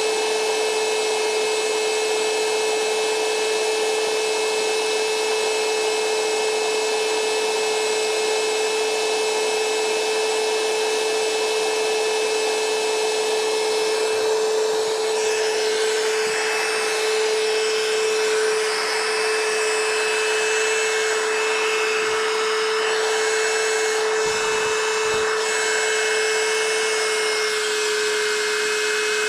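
A small motor running steadily: a constant hum over an even whirring hiss, with a few faint thuds in the second half.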